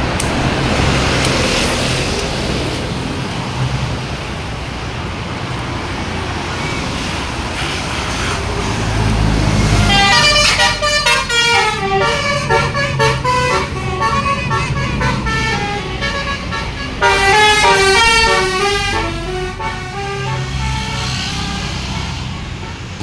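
Bus engine and passing traffic rumbling, then a bus's telolet horn, a multi-tone musical horn, playing a quick stepping tune of many notes about ten seconds in, and a second shorter phrase about seventeen seconds in.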